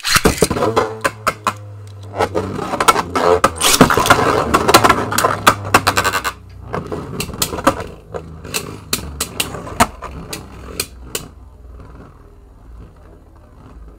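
Two Beyblade Burst tops launched into a plastic stadium near the start, rattling and clacking against each other and the stadium walls for about six seconds. They then spin on with a quieter whir and scattered clicks that thin out near the end.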